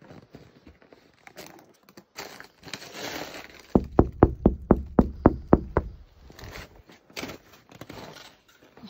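Knuckles rapping on a moose calf hide frozen solid on its frame: about ten quick knocks at roughly four or five a second, starting about four seconds in, which show that the hide has frozen into a stiff sheet. Before them there is faint scratching and rustling of hands on the frosted hide.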